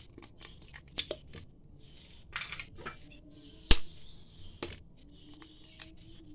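Eggs being cracked against the rim of a food processor bowl and dropped in: a few sharp taps, the loudest a little past halfway, with soft handling noise between them.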